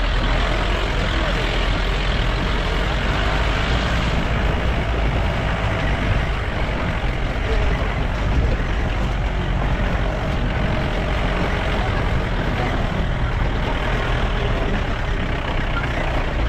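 Off-road jeep engine running steadily while driving, with the rumble of its tyres over a rough, stony dirt track.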